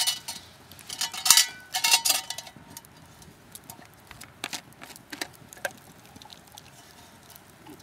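Stainless steel canteen cup clinking and clanking as it is handled: several sharp metallic knocks with a brief ring in the first couple of seconds, then a few fainter clicks.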